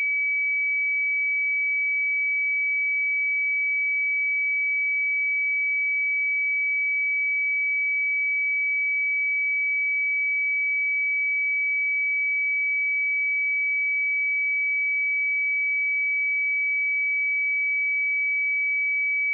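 A steady, unbroken 2284 Hz sine-wave test tone: a single pure high-pitched note at constant loudness.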